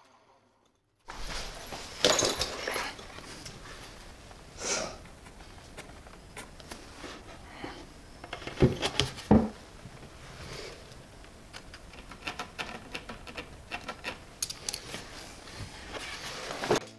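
An oak stair tread being slid and worked into place on a bottom step by hand. Scraping and rubbing with scattered light knocks and taps start about a second in, and a few sharper knocks come through, two of them close together past the middle.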